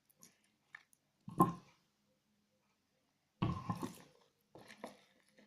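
Sticky slime being mixed and handled in a small cup: scattered small clicks, a sharp louder clack about a second and a half in, and a longer, denser burst of handling noise around three and a half seconds in.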